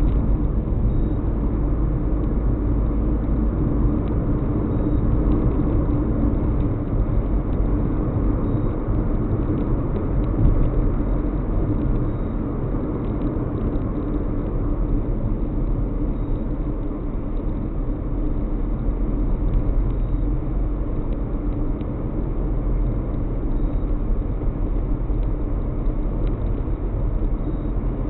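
Steady low rumble of a car driving along an open road, its road and engine noise heard from inside the cabin through a dashcam microphone.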